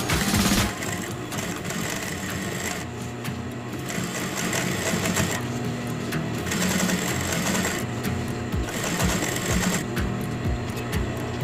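Sewing machine stitching a narrow rolled hem through a hemmer foot, running in stretches that start and stop.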